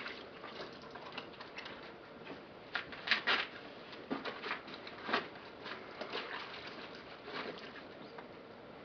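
Clothes being washed by hand in a plastic basin of water: irregular small splashes and drips as the garments are worked and lifted.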